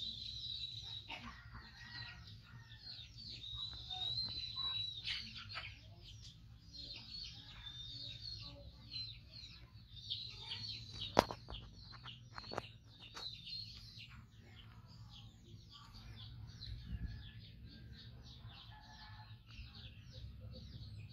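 Birds chirping and calling, with many short high chirps and a few held whistle-like calls, thinning out after the middle. A single sharp click about eleven seconds in is the loudest sound, over a low steady hum.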